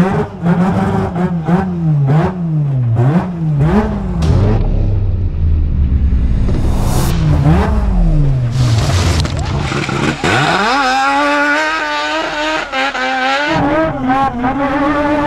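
Race truck's rotary engine revving up and down repeatedly between throttle lifts as it charges down a steep gravel road, with a rush of tyre and gravel noise partway through. About ten seconds in it climbs to a sustained high-rev run.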